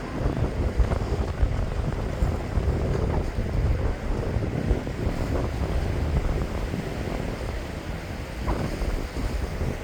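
Airliner cabin noise during landing: a steady low rumble of engines and rushing air, with uneven buffeting.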